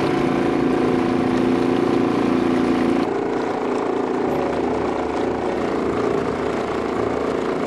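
A small river boat's petrol outboard motor runs at a steady cruising speed, heard from on board as a constant drone. Its tone shifts slightly about three seconds in.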